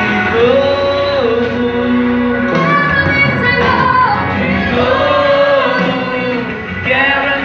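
A small church vocal group of women and men singing a gospel song together in held notes, one woman singing into a microphone.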